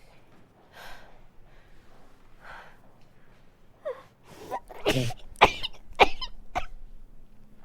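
A woman's fit of sneezing into a handkerchief. Soft breaths and hitching gasps build up, then about five seconds in she sneezes about four times in quick succession, roughly half a second apart.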